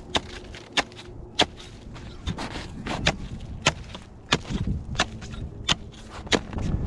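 Hand-forged steel ice chisel on a wooden pole being driven into lake ice, a sharp chop about every two-thirds of a second, about a dozen strikes as the hole is cut.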